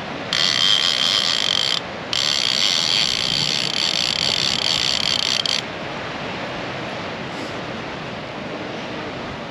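Fishing reel clicker ratcheting fast in two bursts, the first about a second and a half long, the second about three and a half seconds after a short break, each starting and stopping suddenly: line being pulled off or wound on the reel during the ulua fight.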